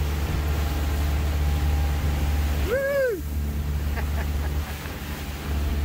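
Motorboat engine running steadily under way, with wind and water noise. About three seconds in, a short cry rises and falls in pitch.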